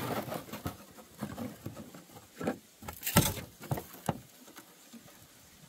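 Irregular light clicks and rustling from hands handling fishing tackle close to the microphone, for about four seconds, loudest a little past three seconds in, then dying away.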